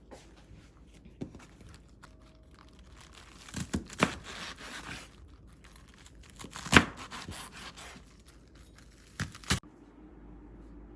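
Wrapping material being crinkled and torn by hand, with irregular rustling and several sharp snaps; the loudest snap comes about seven seconds in, and the last two close together near the end.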